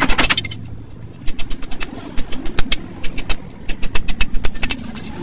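Hammer blows on a steel punch knocking the rivets out of a truck drum-brake shoe to strip the old lining: sharp metallic strikes in quick runs of several blows, with short pauses between the runs.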